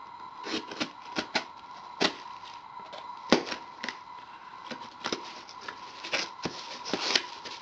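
Cardboard shipping box being prised open at one end by gloved hands: irregular scratching, tearing and tapping of cardboard, with one sharp loud knock a little before the middle. A faint steady high hum runs underneath.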